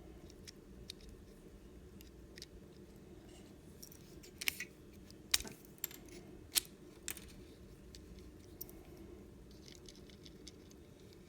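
Light, sharp clicks and taps of small tools and tiny plastic and metal parts being handled while a coupler is worked out of an N scale locomotive, a few louder ones in the middle, over a faint steady hum.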